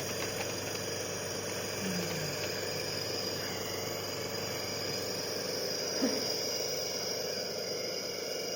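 Steady background hiss, with two brief soft vocal sounds from the sick baby, one about two seconds in and one about six seconds in.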